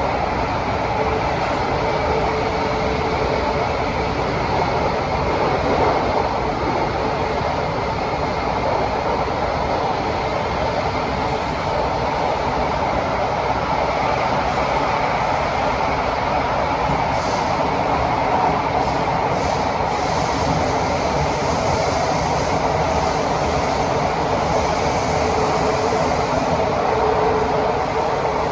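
Onboard running noise of a Kawasaki & CRRC Sifang CT251 metro train travelling between stations: a steady rumble of wheels on rail and running gear. A faint steady tone sounds near the start and again near the end, and a few brief high-pitched sounds come around the middle.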